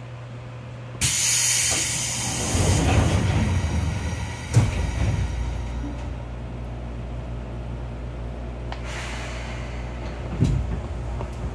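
Seibu 2000 series commuter train's air-operated passenger doors closing: a sudden loud rush of air hiss about a second in, a rumble as the doors slide, and a sharp thud as they shut about four and a half seconds in. A second, shorter hiss of air follows near nine seconds and a clunk near ten and a half, over the car's steady low electrical hum.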